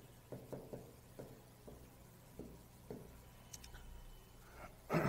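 Chalk on a blackboard while words are written: a string of short, faint taps over the first three seconds, then a brief vocal sound near the end.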